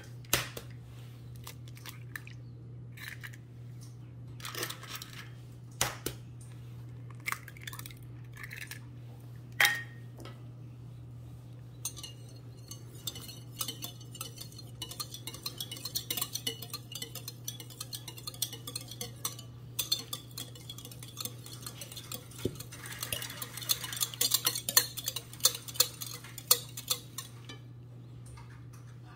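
Wire whisk beating eggs in a glass mixing bowl: fast, continuous clinking of the wires against the glass, starting about twelve seconds in and loudest near the end. Before that come a few separate clinks and knocks, over a low steady hum.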